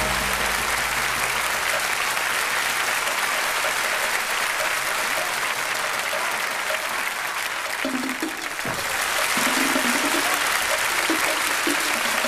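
An audience applauding steadily over music. About eight seconds in, the clapping dips briefly and short melodic notes come in.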